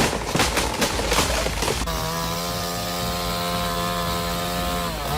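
Chainsaw running at high, steady revs from about two seconds in, its pitch dipping briefly near the end. Before it starts, a spell of irregular sharp knocks and cracks.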